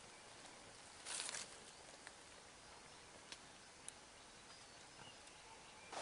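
Near silence, broken about a second in by a brief rustle of dry leaf litter being handled, then two faint ticks.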